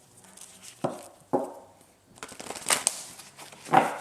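A deck of tarot cards being shuffled and handled: two sharp snaps about a second in, then a denser run of quick card flicks and rustling in the second half.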